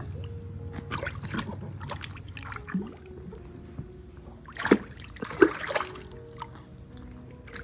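Water splashing in a small inflatable pool as a baby monkey swims and paddles, in irregular bursts with the loudest splashes a little past the middle.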